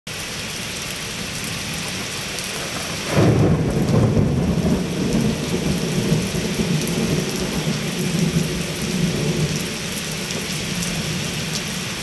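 Heavy rain pouring down onto wet ground, a steady hiss and patter. About three seconds in, a rumble of thunder swells up suddenly and then slowly dies away under the rain.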